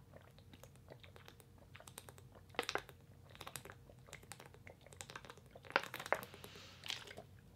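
Drinking water from a small plastic bottle: a run of faint clicky swallows and gulps, with the thin plastic bottle crinkling, a few louder gulps now and then.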